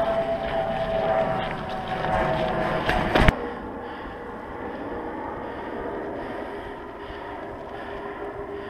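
Wind rushing over the microphone of a camera riding along on a unicycle down a gravel path. About three seconds in it cuts off suddenly to a quieter, steady outdoor background with a faint steady hum.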